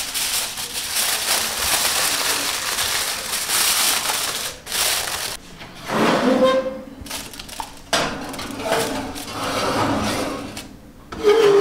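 Aluminium foil crinkling as it is pressed down over a glass baking dish, for about four and a half seconds. Then scrapes and knocks as the covered dish is slid into a gas oven.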